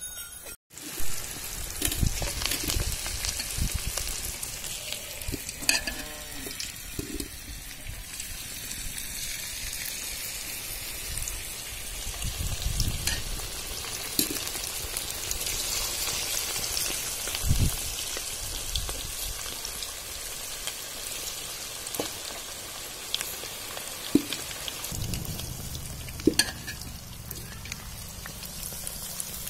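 Chicken pakora deep-frying in hot oil in a metal kadai: a steady sizzling hiss, with scattered sharp clicks through it.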